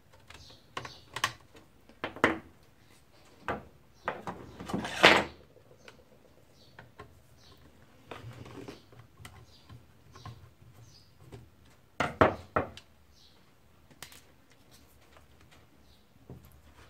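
Scattered plastic clicks and knocks from a Lexmark MS310/410/510 imaging (drum) unit being taken apart by hand with a screwdriver. The loudest clatters come about five seconds in and again around twelve seconds.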